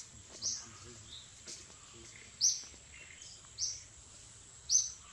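A bird calling repeatedly: four loud, short, high chirps about a second apart, with fainter calls in between. A steady thin high-pitched hum runs underneath.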